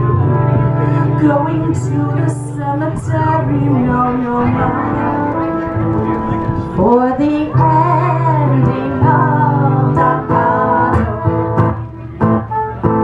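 Live acoustic folk music: an acoustic guitar playing with singing, and held notes that glide in pitch.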